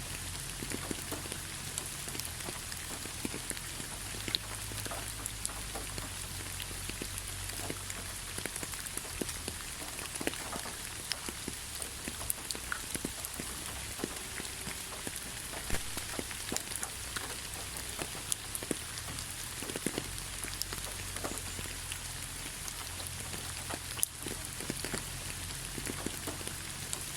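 Steady rain falling, a constant hiss with many separate drops ticking irregularly on a surface.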